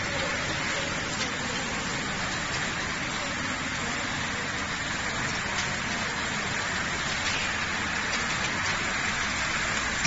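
Tunnel automatic car wash running: a steady hiss of water spraying onto a car, mixed with machinery noise.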